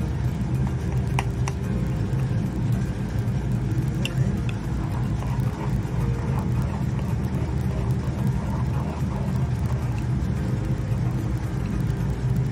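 A metal spoon stirring thick molokhia soup in a nonstick pot, clinking against the pot a few times, twice in the first two seconds and twice more about four seconds in. Under it, a steady low hum runs throughout and is the loudest sound.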